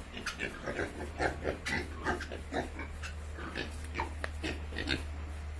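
Pigs grunting in a pen, many short calls in quick, irregular succession.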